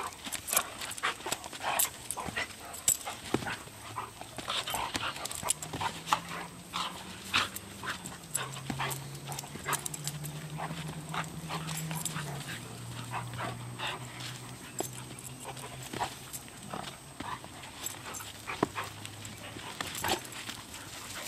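Dogs play-wrestling: a steady run of quick scuffs and sharp clicks from paws on the ground and snapping jaws. A low steady hum steps down in pitch through the middle of the scuffle.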